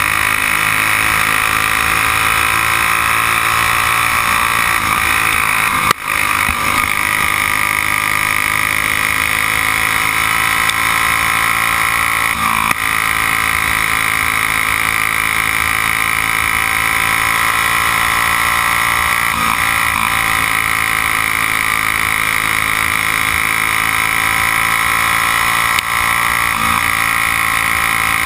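Briggs & Stratton Raptor single-cylinder kart engine running hard at racing speed, heard close up from the kart itself; its pitch dips and climbs again about every six or seven seconds through the turns, with a couple of brief knocks.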